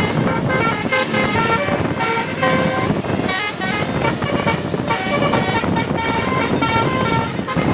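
Bus telolet horn, a Basuri multi-trumpet musical air horn, playing a fast melody of short stepping notes. A constant noisy rumble sits underneath.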